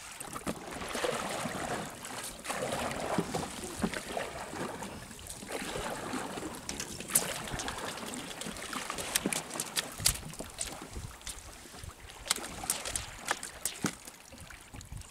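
Water lapping and trickling around a small open fishing boat while a handline is hauled in by hand, with scattered sharp clicks and taps throughout.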